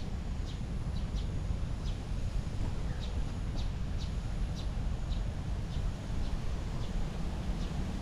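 Wind buffeting the microphone as a steady low rumble, with a bird chirping over it in short high notes, about two a second.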